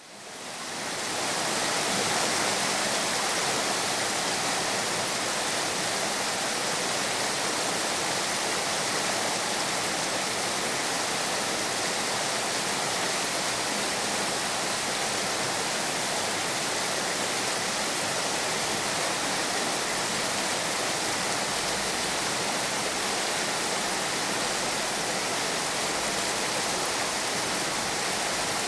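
Heavy rain falling as a steady, dense hiss, fading in from silence over the first couple of seconds.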